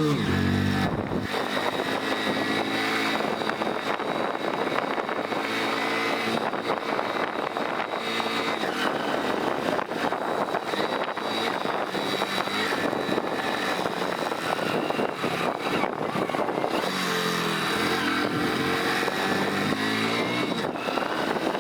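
Hero Splendor motorcycle being ridden, its single-cylinder engine running with wind and road noise. No visor or fairing rattle stands out, which the rider takes as the rattle having been cured by new rubber seals and double-sided tape.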